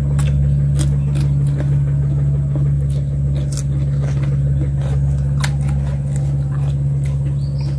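A steady low motor-like hum runs throughout. Over it come scattered small clicks and crunches of people eating, biting into cucumber and picking at grilled fish.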